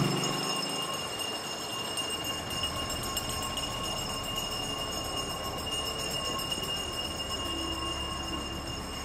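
City street traffic noise: a vehicle that has just passed fades away in the first second, leaving a steady rumble of traffic. A thin steady high-pitched tone sits above it, and the rumble swells slightly near the end as another vehicle nears.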